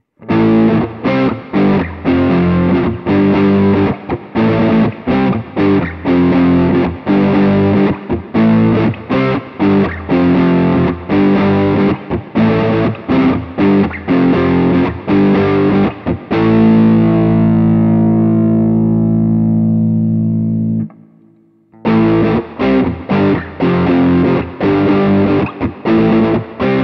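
Overdriven electric guitar, an Epiphone Les Paul Standard Pro with Alnico pickups, played through a NUX MG300 modelling processor on its Budda amp patch with reverb, in choppy rhythm riffs with short stops. About sixteen seconds in, a chord is held and rings out for about four seconds, then is cut off for a second of silence before the riffing resumes.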